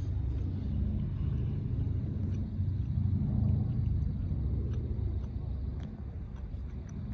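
Boeing B-17G Flying Fortress's four Wright R-1820 Cyclone radial engines droning in flight at a distance, swelling about three seconds in and easing off toward the end.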